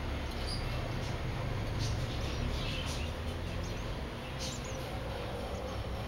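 A few faint, thin, short chirps and squeaks from purple sunbirds at their hanging nest, scattered through, over a steady low rumble.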